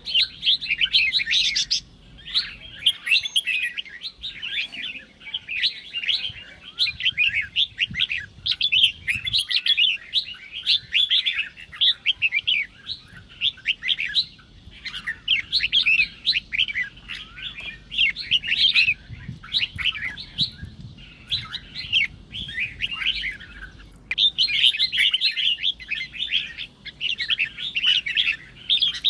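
Red-whiskered bulbul singing in rapid, chattering phrases with only brief pauses: the aggressive, challenging song used to provoke other bulbuls into answering.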